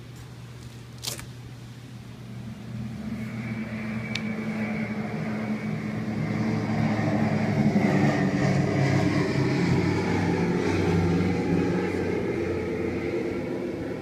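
Recorded bomber flyover sound effect played through the refrigerator's speaker: a propeller-engine drone that swells, peaks in the middle and fades toward the end. A sharp click about a second in, as the door is opened.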